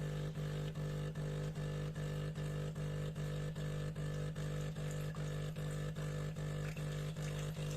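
De'Longhi Dinamica Plus espresso machine's pump running during its automatic start-up rinse: a steady hum that pulses evenly about four times a second.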